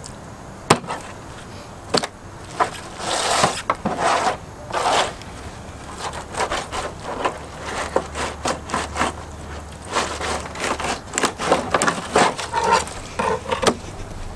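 Fillet knife scraping and tapping against a plastic cutting table as a sheepshead fillet is skinned and trimmed: an irregular run of short scrapes and sharp taps.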